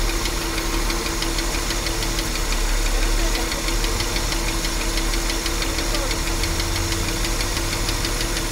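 230 cubic-inch inline-six engine running steadily, with a constant hum and a fast, even ticking on top. This is the noise the owner calls a grinding and cannot place.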